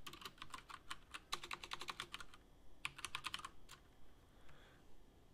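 Typing on a computer keyboard: a quick run of keystrokes that pauses, comes back in a short burst and then trails off into a few single taps.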